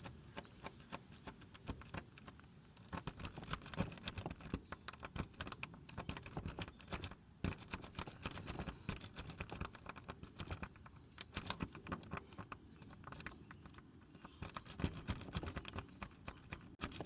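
Lock pick scraping and clicking against the pins inside a door lock cylinder held under tension: a rapid, irregular run of small metallic clicks and scratches, busier from about three seconds in.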